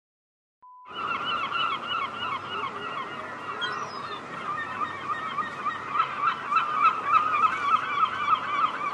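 A large flock of birds calling all at once, a dense chorus of many overlapping short calls that starts abruptly about a second in, just after a brief beep.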